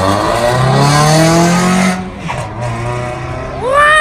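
Car with its resonator and secondary catalytic converter deleted and the muffler kept, accelerating hard past. The exhaust note climbs steadily for about two seconds, then falls to a lower, steadier note. A short rising cry comes near the end.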